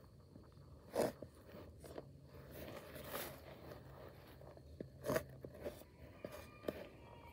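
Spade cutting into hard clay soil: two loud crunches, about a second in and about five seconds in, with lighter scrapes and clicks of the blade between them.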